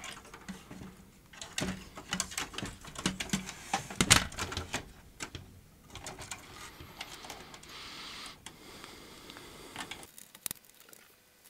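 Irregular clicks, taps and rattles of the top cover and inner parts of a Sony CHC-CL5MD mini hi-fi system being handled and fitted back together, with one sharper knock about four seconds in.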